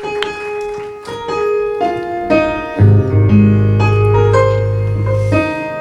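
Piano playing a song's instrumental introduction, a melody of sustained chords, with strong low bass notes joining about three seconds in.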